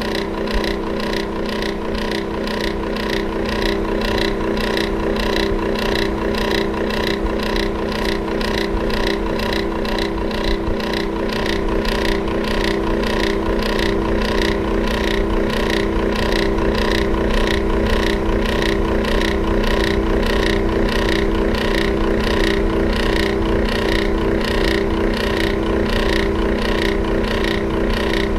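Electric fan running: a steady motor hum with a whirring that pulses evenly about twice a second.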